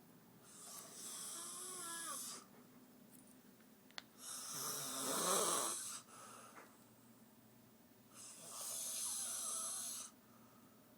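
A woman snoring loudly in deep sleep: three long snores about four seconds apart, the middle one the loudest.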